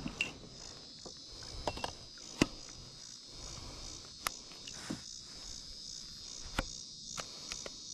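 Steady, pulsing chorus of insects, high-pitched and continuous, with a few sharp knocks scattered through it, the loudest about two and a half seconds in.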